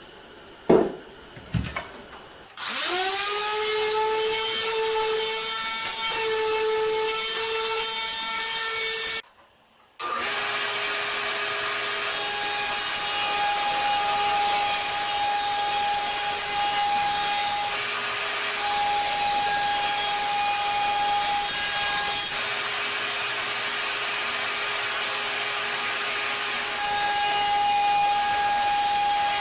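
Two knocks, then a power tool motor spins up and runs steadily for several seconds. After a short break, a router mounted in a benchtop router table runs steadily while it cuts a half round-over along the inside edge of a wooden rail, its tone shifting now and then as the wood is fed past the bit.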